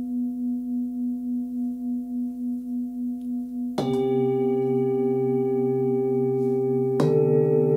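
Hand-hammered Nepalese singing bowls struck with a felt-covered mallet. One bowl rings on with a slow pulsing beat. A second bowl is struck about four seconds in, adding a lower tone, and another near the end, so the tones ring together.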